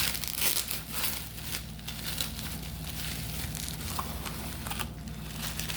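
Crinkling of a trading card pack's wrapper as it is torn open and handled, in irregular crackly rustles.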